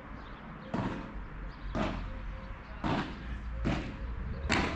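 Padel ball being hit back and forth in a rally: five sharp knocks about a second apart.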